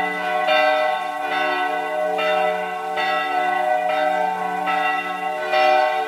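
Church bells of two churches ringing at the same time, their tones overlapping and humming on. A new strike comes a little under once a second.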